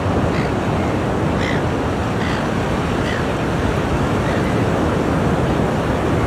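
Ocean surf washing onto the shore: a steady, dense rush of breaking waves with a heavy low rumble.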